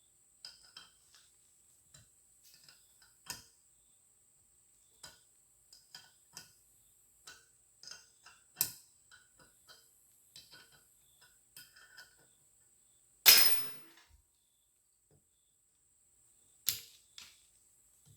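Irregular light metallic clicks and taps of hand tools working on a cylinder head, with one loud, sharp metal clatter about 13 seconds in and another sharp click a few seconds later. A faint steady high whine sits under it all.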